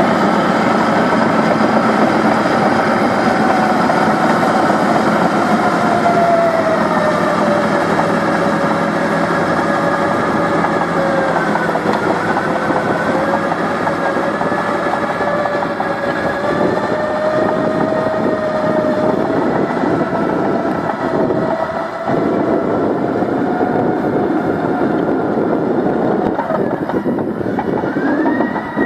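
Caterpillar D6M crawler bulldozer working, its diesel engine running under load with a steady whine that wavers slowly in pitch. Irregular clanks come in during the second half, and the whine rises sharply near the end.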